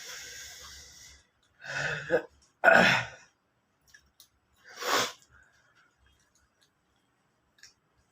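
A person's long hissing breath, then three sharp sneeze-like bursts of breath, the second the loudest.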